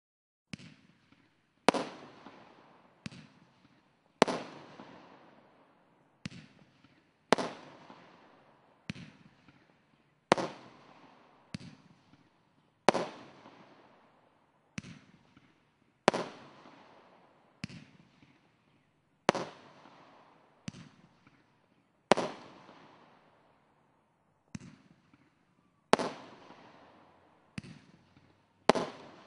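SkyLine 'Extra Power' 16-shot fireworks cakes firing a series of sharp bangs, roughly one every second and a half, some louder than others, each trailing off in a short echoing tail.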